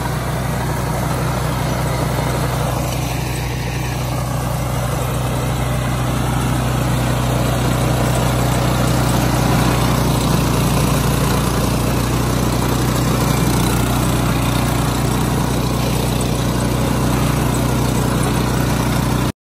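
Engine of an OREC HRC805 tracked hammer-knife flail mower running steadily with a strong low hum, cutting off abruptly near the end.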